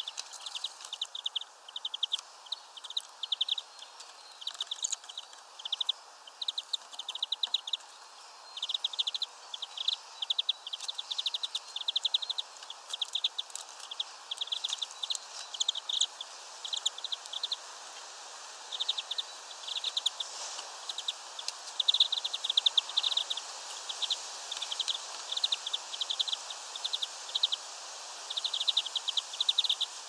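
Small songbirds twittering: short, quick, high-pitched trills repeated in bursts with brief gaps, some louder than others.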